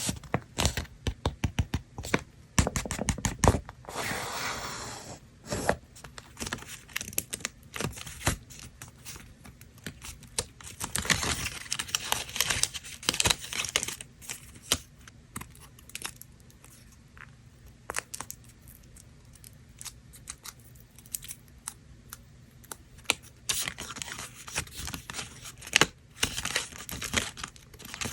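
Paper and card parts of a DIY miniature kit handled close up: many quick taps and clicks, broken by longer stretches of tearing and rustling, one about four seconds in, a longer one near the middle and another near the end.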